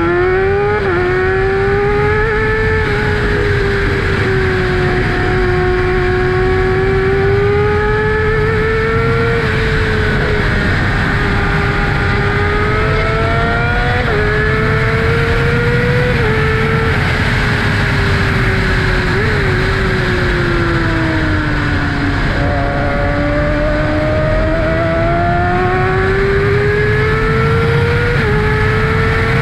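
2012 Kawasaki ZX-6R's inline-four engine running through an M4 Tech 1 aftermarket exhaust while riding, its pitch rising and falling gently with the throttle and dropping suddenly a few times at upshifts. Wind rushes over the helmet camera throughout.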